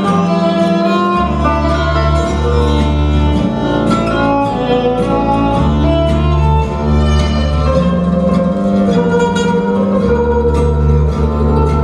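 Recorded string-band music led by guitars, a Romani-style instrumental with a steady bass line under plucked and sustained melody lines.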